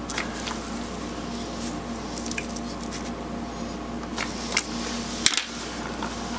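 Scattered light clicks and scrapes of insulated wire and alligator clips being handled on a brass pipe, the sharpest ones about four and a half and five seconds in, over a steady low hum.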